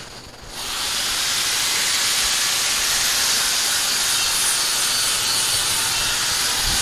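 Automatic transmission fluid pouring steadily out of a loosened transmission pan into a drain pan, a constant splashing hiss that starts about half a second in. The pan is being dropped to drain because its drain plug is stripped.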